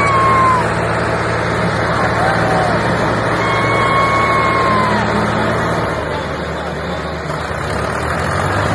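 Diesel engines of a Swaraj 855 and an Indofarm tractor running at full load as they pull against each other in a tug-of-war: a steady low engine drone, easing a little after about six seconds, with people shouting over it.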